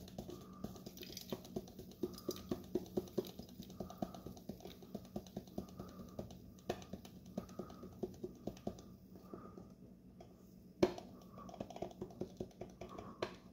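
Contents of a Roman candle poured from a plastic cup into a metal tube, making many small, irregular clicks and taps as the pieces drop in. One louder knock comes about eleven seconds in.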